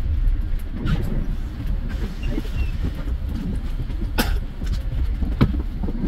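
Ride inside a moving bus: a steady low engine and road rumble with frequent small knocks and rattles. Two sharper rattles stand out, one about four seconds in and another about a second later.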